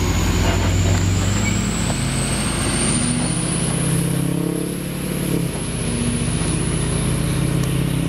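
Pickup truck engine pulling away and accelerating while towing a loaded flatbed car trailer, its pitch stepping up and changing a couple of times, with a thin high whine rising slowly.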